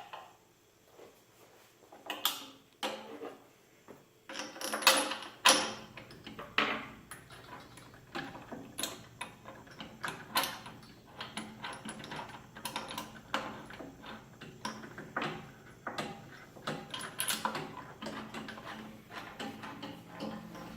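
Irregular clinks and knocks of metal hardware being handled and fitted, as load cells, mounting plates and nuts go onto a lift table's frame. The loudest knocks come about five seconds in, and a faint steady hum sets in at about the same time.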